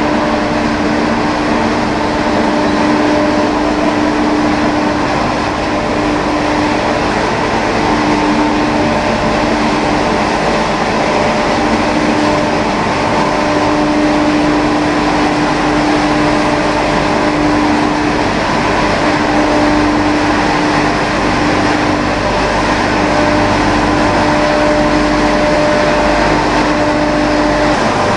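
Rotary drum dryer of a straw pellet line running: a loud, steady machine whir with a constant hum tone, unchanging throughout.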